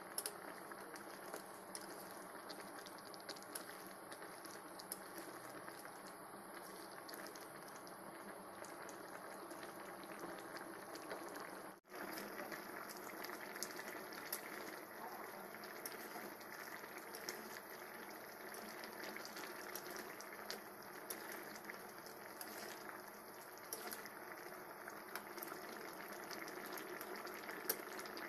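Chicken curry with a little water simmering in a pan: steady bubbling with many small pops and crackles. It breaks off for an instant near the middle and resumes a little louder.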